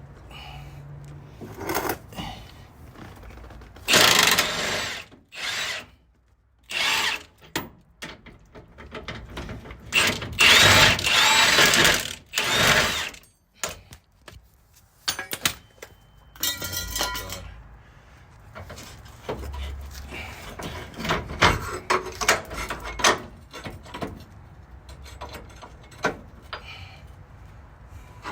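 Power tool run in several short bursts of one to three seconds, the longest from about ten to thirteen seconds in, with sharp metal knocks and clanks between the bursts.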